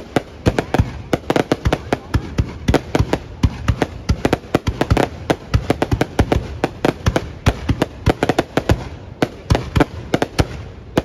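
A fireworks display: aerial shells bursting in rapid, irregular succession, several bangs a second with crackling between them.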